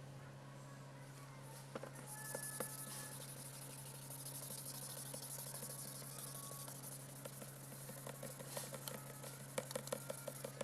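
Sandpaper rubbing on a plastic tail-light lens: a faint, steady hiss that starts about two seconds in, with a low hum underneath and light ticks near the end.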